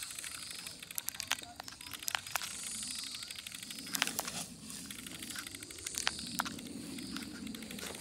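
Footsteps and rustling through dry grass and scrub on a hill trail, with irregular sharp clicks.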